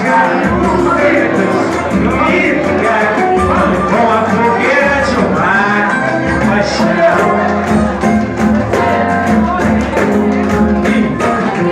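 A song: a singing voice over band accompaniment with bass notes and a steady beat.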